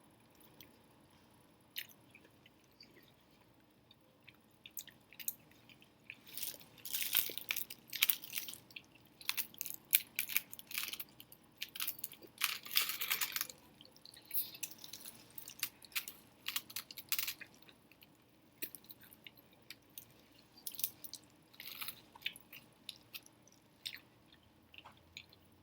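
Close-up chewing of apple pie with a crisp crust: wet smacks and small crunches that come in clusters, busiest through the middle and sparse at the start and end.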